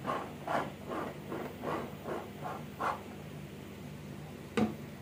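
Metal palette knife scraping over frosting on a cake, short strokes about three a second that stop about three seconds in. A single sharp knock comes near the end, over a low steady hum.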